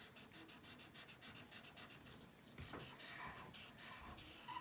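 Felt-tip marker scribbling on paper in quick, repeated back-and-forth strokes as an area is coloured in, faint.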